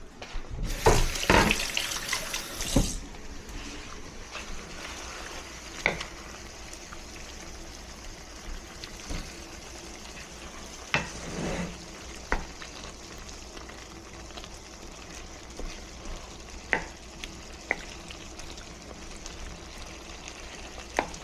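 Kitchen tap running for about two seconds near the start, then a low steady hiss broken by scattered clinks and clicks.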